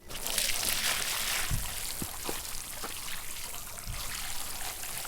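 Water pouring and trickling steadily, with a few separate drips landing between about one and a half and four seconds in.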